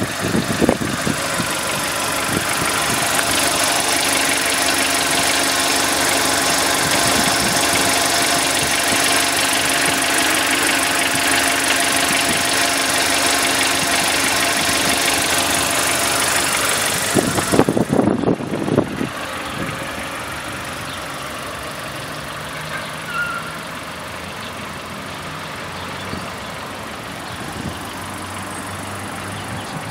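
The Mitsubishi Dion's 2.0-litre 16-valve inline-four petrol engine idling steadily, with a hiss, heard close up from under the car. About two-thirds of the way through there is a brief low rumble, and after it the sound goes on more quietly.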